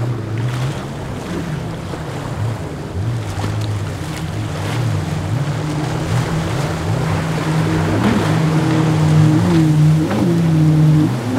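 Twin Yamaha 300 V6 four-stroke outboards on a Venture 34 center console running hard through rough inlet waves, their pitch wavering and dipping sharply twice near the end, over the rush of spray and breaking water. It gets louder toward the end as the boat passes close.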